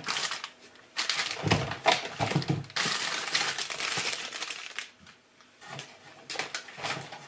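Plastic flower sleeve around a bunch of tulips crinkling and rustling as it is handled, dense for about four seconds, then a few short rustles.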